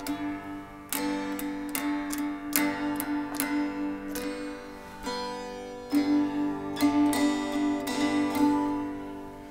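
Cigar-box guitar strummed over and over on the same open chord, each strum ringing on into the next. The strumming pauses briefly about halfway, resumes, and the last strum rings out near the end.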